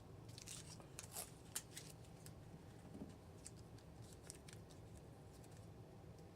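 Faint crackling and scraping handling sounds, a scatter of short ticks in two clusters, from a clear acrylic cover sheet being pressed and spread over wet solder mask paint on a circuit board.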